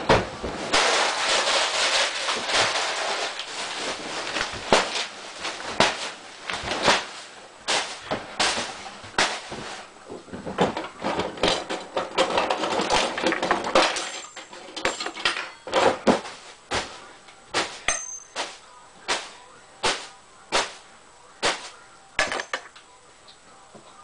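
A plastic garbage bag rustling and crackling for several seconds, then more than a dozen sharp knocks, a little over one a second, that stop shortly before the end.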